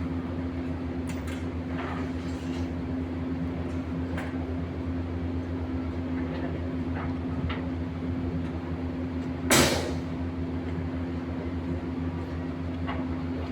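A steady low engine or motor drone with an even hum, plus a few light knocks and one short, loud scraping hiss about two-thirds of the way in.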